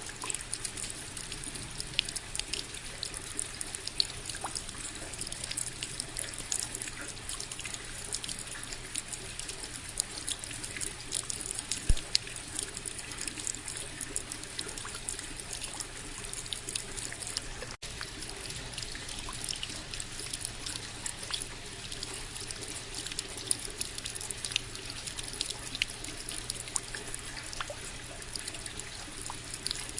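Steady rain, with many separate drops ticking through it. The sound cuts out for an instant about eighteen seconds in.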